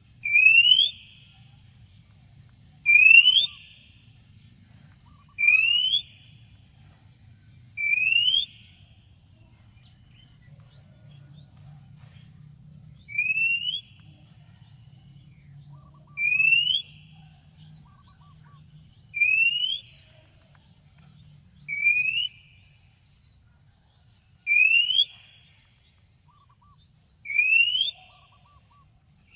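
Oriental magpie-robin giving a single rising whistle again and again, about every two and a half to three seconds, ten times in all, with a longer pause near the middle. A faint low hum runs underneath.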